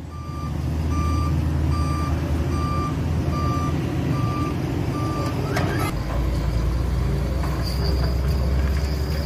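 Heavy diesel engines running with a reversing alarm beeping about once every 0.8 seconds; the beeping stops about five seconds in. A short hiss follows, then the engine note changes.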